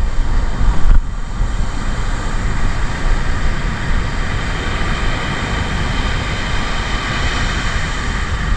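Wind buffeting the microphone over the steady roar of surf breaking on the beach, a continuous noise with no distinct strikes that swells slightly midway.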